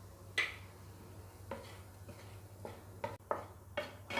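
Spatula scraping and knocking against a nonstick frying pan while fried yam pieces are tossed with grated coconut: about eight separate strokes, the first the loudest.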